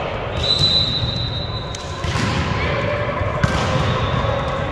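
A referee's whistle blown once, a steady shrill note lasting just over a second, over the hubbub of a gym. About three and a half seconds in comes a single sharp hit.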